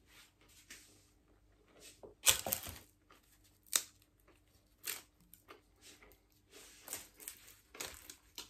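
Crisp baked zucchini-and-potato flatbread snapping and crackling as it is broken apart by hand. Scattered sharp cracks, the loudest cluster about two seconds in.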